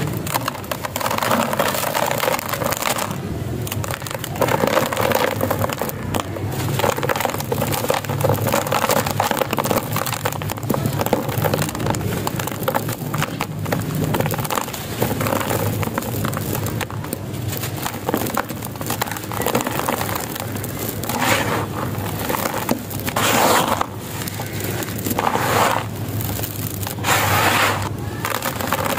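Clumps of gritty sand crushed and crumbled by hand, grains and small gravel crackling and pouring into a basin, with several louder crunching bursts in the last third.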